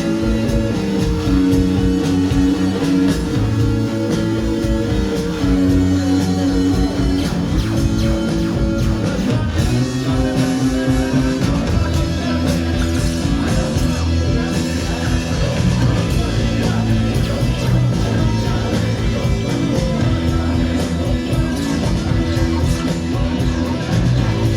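Loud, steady guitar-led rock music played live: held guitar notes that change every second or two over a dense low end.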